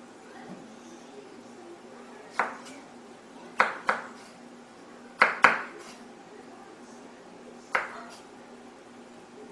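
Chef's knife knocking on a wooden cutting board while dicing an onion: six sharp knocks with a short ring, spaced unevenly, two of them in close pairs around the middle.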